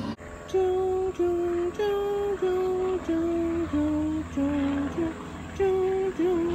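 A slow melody of single held notes, under two a second, hummed or played on a soft pure-toned instrument. It steps down in pitch over a few seconds, breaks briefly about five seconds in, then climbs back up, over a faint low steady hum.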